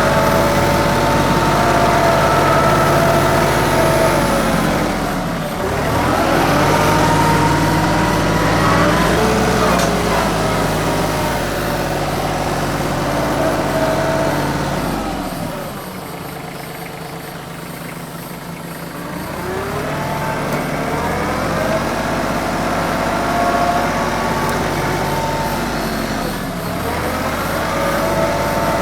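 TYM 2515H compact tractor's three-cylinder diesel engine running at working speed while it packs dirt. Its pitch sags and recovers several times under load, and it falls to a lower, quieter speed for a few seconds midway before revving back up.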